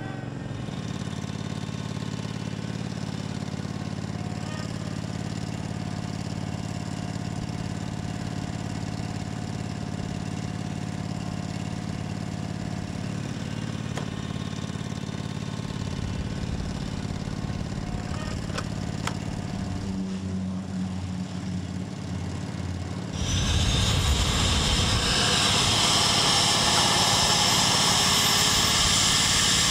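Small gasoline engine of an aircraft tug running steadily at idle. After about 23 seconds a business jet's turbine engine starts on the tug's 24-volt jump-start power: a sudden loud rush with a slowly rising whine as the engine spools up.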